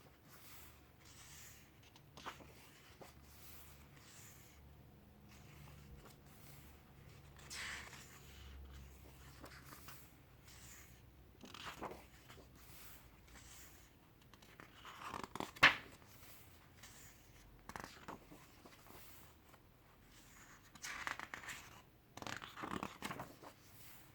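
Pages of a paper photo book being turned and handled: quiet rustles and swishes every few seconds, with one sharper tap or snap about fifteen seconds in.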